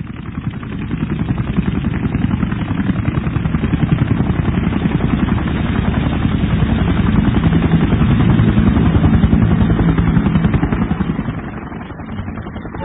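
Helicopter-like sound effect: a fast, even rotor chopping over a steady low engine hum, fading in and growing louder, then easing off near the end. The sound is narrow and thin, as in a low-bandwidth radio-stream recording.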